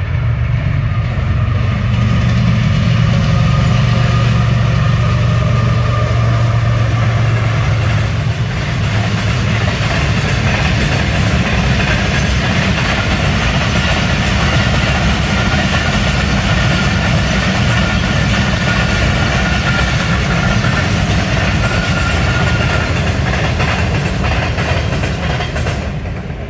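Passenger train passing: a loud, steady low drone from the diesel locomotive for the first several seconds, giving way to the continuous rumble of the coaches running on the rails.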